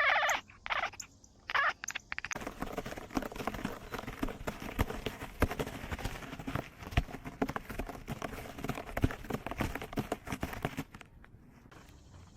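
Domestic cat giving two short meows, then a long run of irregular taps, scuffs and rustles as it moves about with a small action camera worn on its body. The tapping stops about a second before the end.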